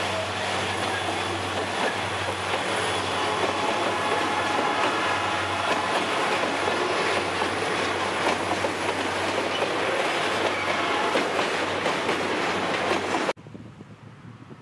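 Freight train's boxcars rolling past close by: steel wheels clattering over the rail joints, with high wheel squeal in the first second or so. The sound cuts off suddenly near the end.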